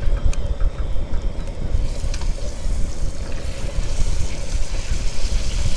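Wind buffeting the microphone in gusts, over a faint steady burner tone, with butter and fish fillets sizzling in a hot cast iron skillet, the sizzle growing brighter about two seconds in.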